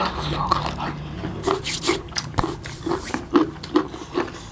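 Noisy eating of noodles: slurping, chewing and lip smacks, with short grunting or whimpering vocal noises from a mouthful of spicy food.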